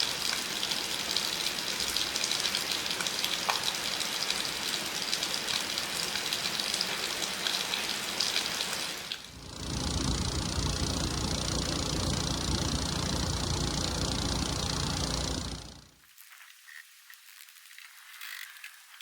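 Steady rain falling, an even hiss. About halfway through it gives way to a louder, deeper rushing noise with a low rumble, which cuts off abruptly a few seconds before the end, leaving only faint sounds.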